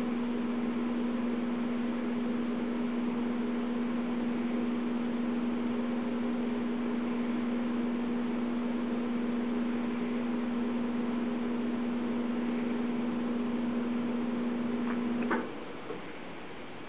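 A steady low electrical or mechanical hum with one strong pitch, over a faint hiss. It cuts off suddenly with a click near the end, leaving only the hiss.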